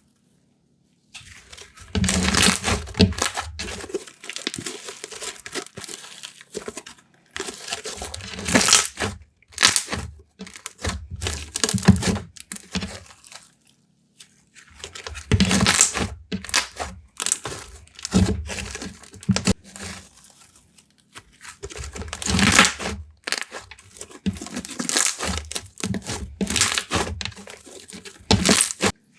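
Slime being stretched, folded and squished by hand, giving irregular crackly clicks, squelches and small air-bubble pops, with short pauses between handfuls.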